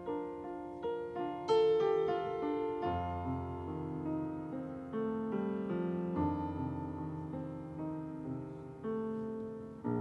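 Grand piano played solo, chords and melody struck note by note and left to ring, with a loud chord about a second and a half in and low bass notes joining about three seconds in.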